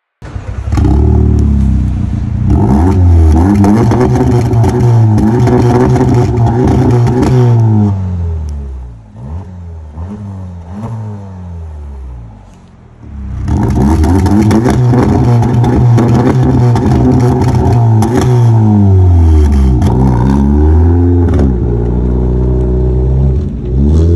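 Škoda Octavia 1.8 turbo four-cylinder petrol engine revved hard through an aftermarket exhaust with its resonator removed: the revs climb and hold high, drop away with a few short throttle blips and crackling overrun pops, then climb and hold high again, fall, and rise once more near the end.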